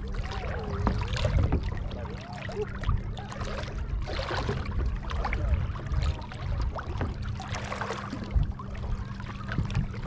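Shallow seawater sloshing and splashing close to the microphone, in irregular surges over a low rumble. A faint wavering tone sounds in the first few seconds.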